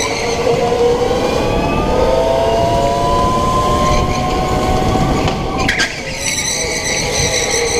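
Indoor racing go-kart heard from its own seat at speed: its motor whine climbs in pitch as it accelerates down the straight, then falls about six seconds in as it slows for a turn, with a brief clatter there. A steady rumble of tyres and chassis runs underneath.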